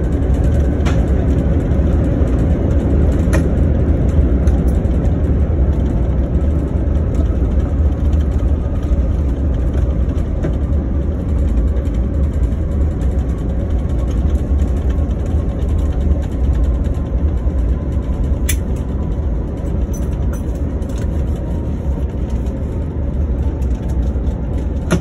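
Cabin noise aboard a Boeing 777 rolling out on the runway after touchdown: a loud, steady low rumble, with a faint whine sliding slowly down in pitch as the airliner slows. A few light clicks sound now and then.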